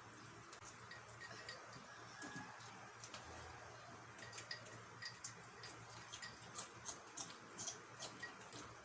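Eating sounds at a meal: irregular small clicks and taps, thin at first and coming thicker and louder in the second half.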